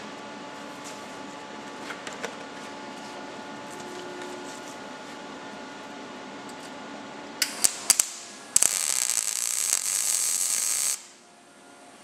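MIG welder arc on thin steel sheet: a few sharp clicks about seven and a half seconds in, then a loud, steady crackle for about two and a half seconds that cuts off suddenly as a short stitch weld is run onto the end of a previous weld. A steady low hum sits underneath.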